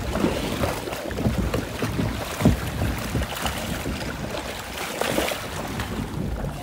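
A ride boat moving along a flowing water channel: rushing, sloshing water with irregular knocks and bumps, the loudest about two and a half seconds in, and wind buffeting the microphone.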